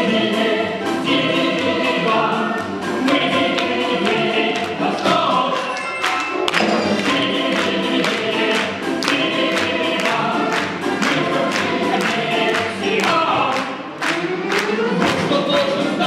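Orchestra of Russian folk instruments, domras and balalaikas among them, playing a brisk number with sharp, regular accents, with voices singing along. There is a rising slide in pitch near the end.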